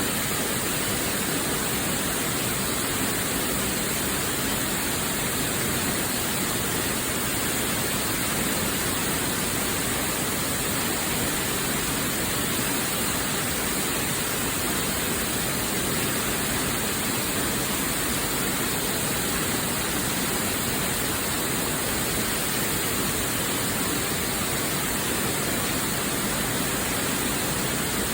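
Waterfall: falling water rushing in a steady, unchanging wash of noise.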